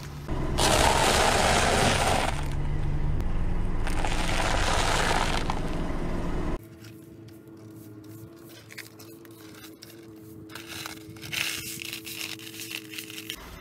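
Car tyre rolling over crushed dry instant noodles, the crumbs crunching and scraping under the tread, over a low engine rumble. About six and a half seconds in this stops, and a hand brush sweeps the noodle crumbs into a plastic dustpan with light scratches and small rattles.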